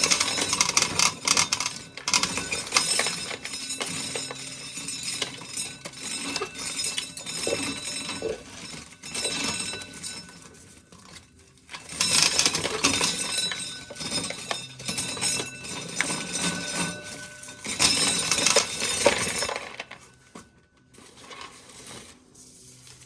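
Dried ear corn being shelled, the kernels clattering and clinking into a pail in several spells of rapid clicking, quieter toward the end.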